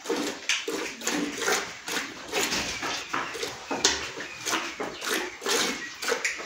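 Cow being hand-milked into a metal pail: squirts of milk hitting the pail in a steady rhythm, about two a second.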